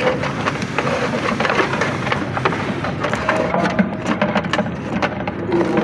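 Electrical wires being worked by hand through a cramped entry into a breaker panel box: irregular clicks, scraping and rustling of wire against conduit and metal.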